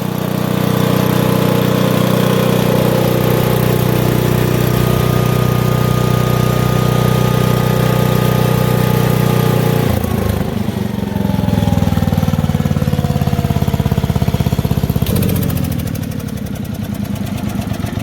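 Lincoln Weldanpower 225 welder's 16 hp Briggs & Stratton engine running steadily at speed, then dropping to a lower speed with a falling pitch about ten seconds in and again a few seconds later as it idles down.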